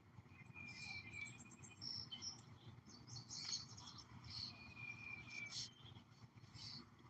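Faint birdsong: scattered high chirps and quick trills, with a couple of held thin whistles, over a low steady rumble.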